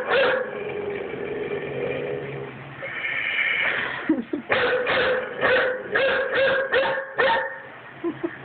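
A dog barking: one bark at the start, a drawn-out whine, then a quick run of about eight barks.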